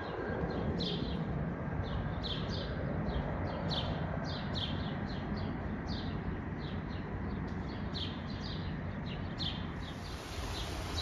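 A songbird chirping over and over, short falling notes about two a second, over a steady low rushing background of wind or distant rumble.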